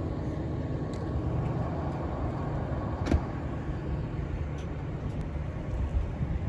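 A vehicle engine idling: a steady low rumble, with a single sharp click about three seconds in.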